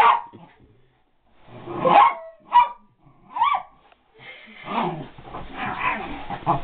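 Small black-and-white terrier barking: four short, separate barks in the first three and a half seconds, then a denser run of barks and yips.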